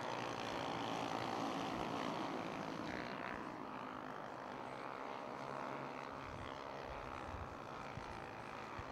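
A pack of Honda CB 300R single-cylinder race motorcycles giving a faint, steady drone as they run at reduced speed under a yellow flag.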